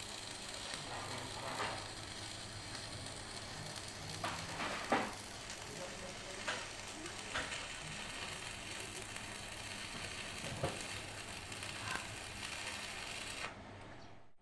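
Stick-welding arc sizzling and crackling steadily, with scattered sharper pops, then cutting off near the end as the arc is broken.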